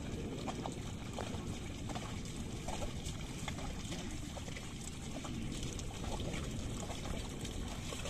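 Water and mud sloshing steadily as a pair of bullocks wade through a flooded paddy field dragging a wooden leveller, with small splashes from their hooves.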